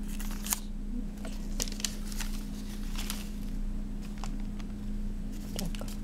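Scattered small clicks and rustles of objects being handled, over a steady low electrical hum.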